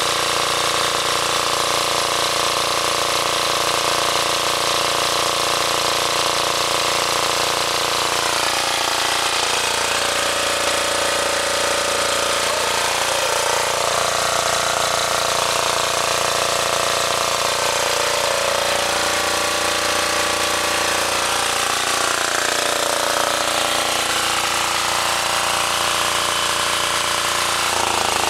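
Small Chinese ETC Eastern Equipment diesel generator running with a rattly engine note, its pitch shifting up and down several times.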